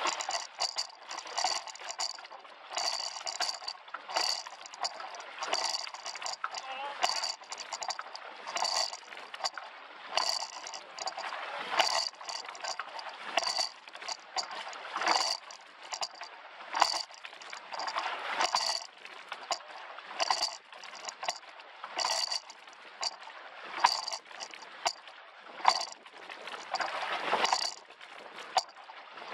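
Oars in a coxless four rowing shell clacking and rattling in their oarlocks and riggers in time with the stroke, a sharp metallic clack about once a second over the rush of water along the hull.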